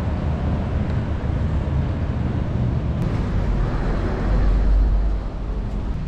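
Outdoor street ambience: a steady haze of road traffic with a low rumble, which swells deeper and louder about four to five seconds in.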